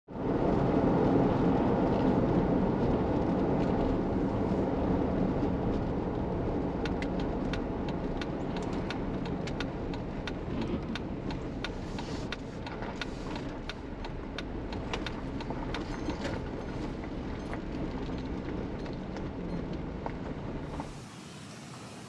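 Vehicle on the move: a steady low road-and-engine rumble that slowly eases, with scattered small clicks or ticks from about seven seconds in, then cuts off suddenly near the end.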